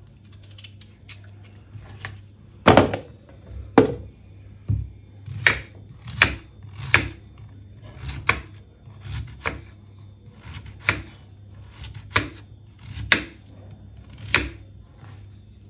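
Kitchen knife slicing raw potato into rounds, the blade knocking on a wooden cutting board with each cut, about one cut a second at an uneven pace, beginning a few seconds in. A faint steady low hum runs underneath.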